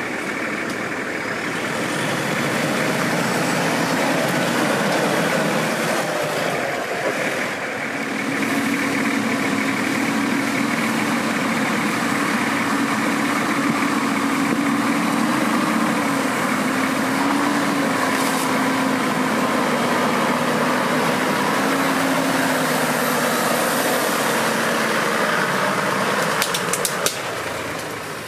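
An off-road 4x4's engine running and working at low speed, its note wavering up and down as the throttle changes and rising about eight seconds in. A few sharp clicks come near the end.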